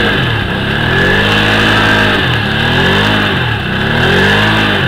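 Can-Am Outlander 500 ATV's V-twin engine revved hard again and again, its pitch rising and falling about four times over a steady whine: the quad is stuck in deep mud and being throttled to drive out.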